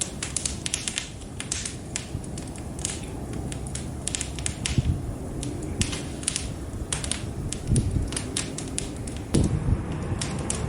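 Wood fire in a fireplace crackling: irregular sharp pops and snaps over a steady low rumble of the flames, which swells a few times, most strongly near the end.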